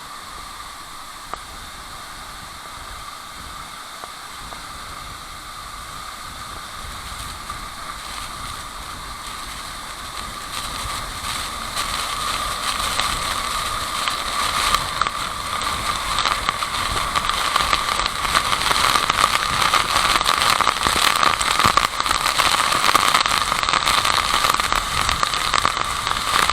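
Waterfall water rushing and splashing in a steady hiss with fine crackling, growing steadily louder through the second half.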